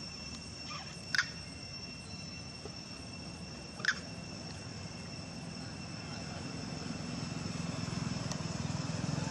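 Outdoor ambience: a steady high whine throughout, two short high chirps about a second and about four seconds in, and a low rumble that grows louder over the last few seconds.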